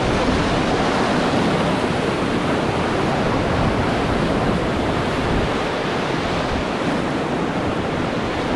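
River whitewater rushing around a raft: a loud, steady wash of water with no breaks.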